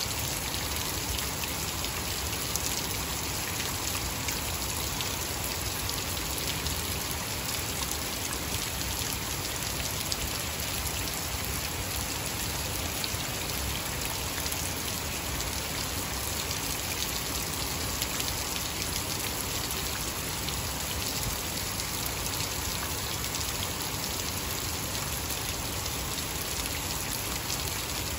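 Heavy rain pouring steadily onto a waterlogged lawn: a dense, even hiss of drops splashing into standing water and wet grass.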